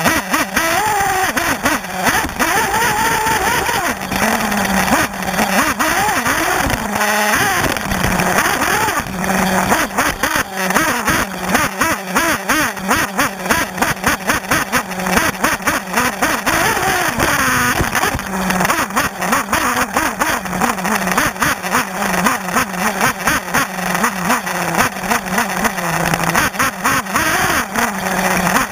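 Two-stroke nitro glow engine of a 1/8-scale JQ buggy (Alpha Dragon A830), heard from a camera on the car, revving up and dropping off again and again through a lap of a dirt track. Many quick knocks and rattles run through it as the chassis hits bumps.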